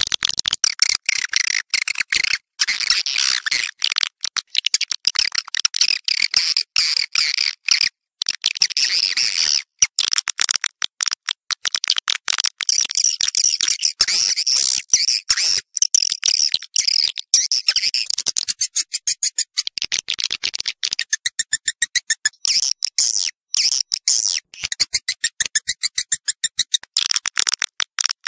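Swiftlets twittering: dense, high, rapid chattering chirps broken by many brief gaps, a swiftlet lure recording of the kind played to call swiftlets in and make them roost in a bird house.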